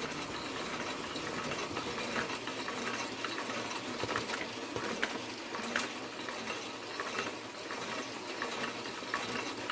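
Toko 810 small offset press running a test print: a steady, fairly quiet mechanical hiss with a few scattered light clicks.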